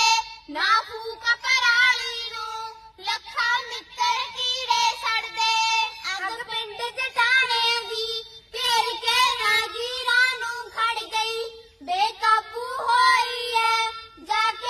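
A group of young schoolgirls singing a Punjabi song together into a microphone, in sung phrases with short breaks between them.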